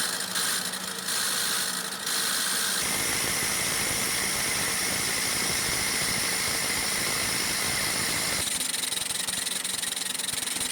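Diesel fuel injection pump being run for testing, its drive running steadily with a loud hiss. It starts abruptly and becomes louder and steadier about two seconds in.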